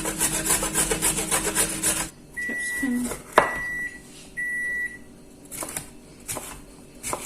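A carrot being grated, fast rapid scraping strokes for about two seconds, then stopping. Three high electronic beeps from a kitchen appliance follow, with a sharp click between the first two, then a few single knife chops on a cutting board near the end.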